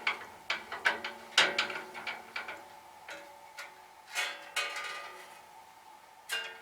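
Irregular metallic clicks and ticks from a small band saw's blade-tension handwheel being wound back to slacken the blade. They come thickest in the first two and a half seconds, with a couple of softer scrapes later and one more click near the end.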